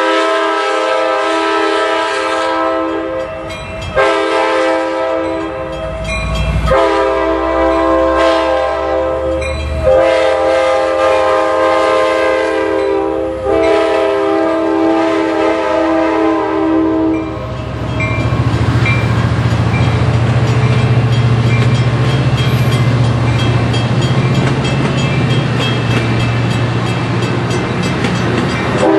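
Amtrak California EMD F59PHI passenger locomotive sounding its multi-chime air horn in a run of about five long blasts with brief breaks as it approaches and passes. The horn stops about 17 seconds in, leaving the rumble and wheel clatter of the bilevel passenger cars rolling by, with a low hum.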